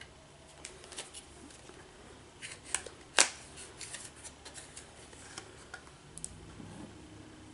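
Hands handling cosmetic packaging, a boxed eyeshadow palette: scattered light clicks, taps and rustles, with one sharp click about three seconds in.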